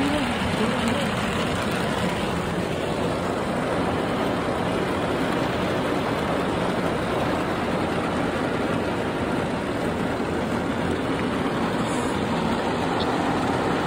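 Heavy rain pouring down, a steady, even hiss heard from inside a parked car.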